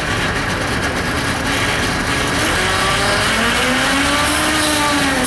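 Heavily loaded truck's engine revving under strain as it climbs the slope onto the ferry, its pitch rising over a couple of seconds from about halfway in, then easing back near the end.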